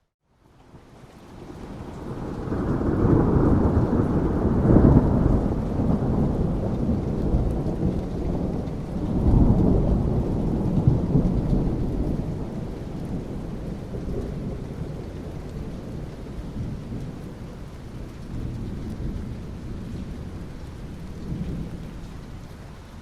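Thunder rolling over steady rain: the rumble builds from about a second in, swells twice a few seconds apart, then slowly dies away while the rain hiss carries on.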